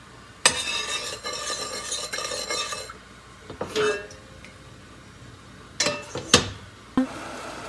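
A utensil stirring liquid in a pot, with metal scraping and rattling for about two and a half seconds. A single ringing clink follows, and then a few sharp knocks near the end.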